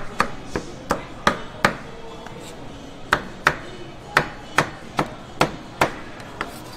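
Chef's knife chopping grilled chicken on a wooden cutting board. A run of sharp knocks, about three a second, with a pause of about a second and a half partway through.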